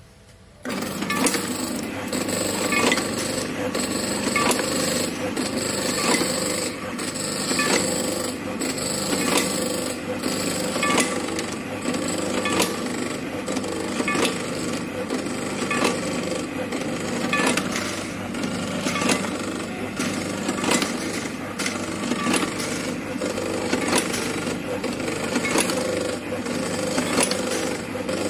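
Single-punch tablet press running, pressing heart-shaped candy tablets: a steady clatter of repeating metallic clacks from the punch strokes over a constant motor hum, starting about a second in.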